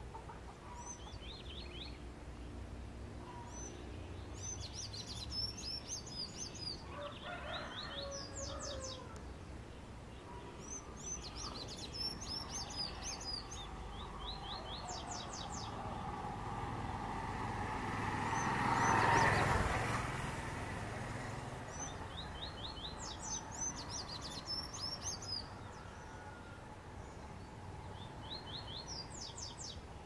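Sayaca tanager singing: short bursts of thin, squeaky, rapidly repeated high notes, about six phrases spread out with pauses between them. A rushing background noise swells and fades about two-thirds of the way through.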